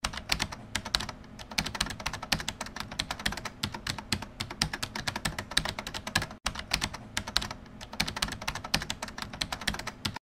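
Rapid computer-keyboard typing, a quick stream of key clicks with a momentary break about six seconds in, used as a sound effect for text typing out on screen.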